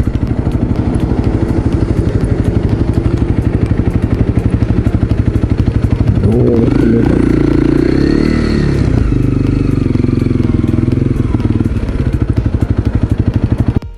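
Motorcycle engine running under way, with a fast, even pulsing from its exhaust. About six seconds in it grows louder and its pitch shifts for a few seconds, then settles again.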